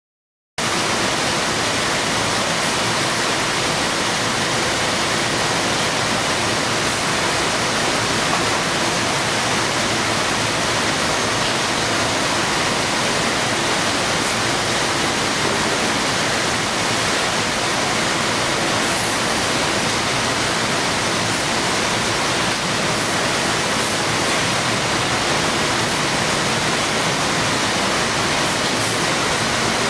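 Steady, even noise of a warehouse packing line, mostly the rush of air from the row of fans on an overhead air-pillow hopper, with conveyor machinery running underneath.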